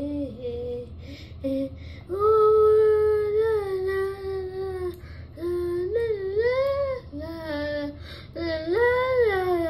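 A high voice singing long held, wordless notes that glide up and down, with a few short breathy sounds between phrases early on, over a steady low hum.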